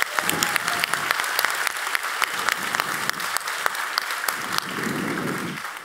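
Audience applauding: many hands clapping in a dense patter that fades out near the end.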